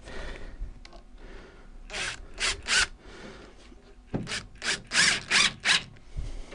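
Cordless drill driver driving a 25 mm screw through a sash cord into the side of a wooden window sash, run in short bursts: three about two seconds in, then a quicker run of bursts from about four seconds in.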